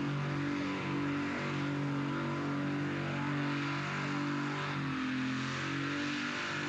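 Four-engine modified pulling tractor running hard under load as it drags the weight sled. It gives a steady deep engine note that shifts slightly in pitch now and then.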